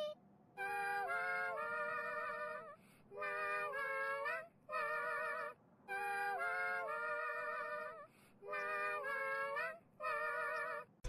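Background music: a high, wavering melody in short phrases with brief gaps between them, the same run of phrases heard twice.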